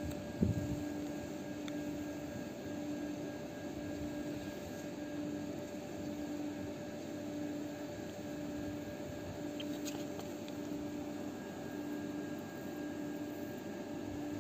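Steady hum of a distant machine, with a low tone that pulses on and off about once a second, and a short low thump about half a second in.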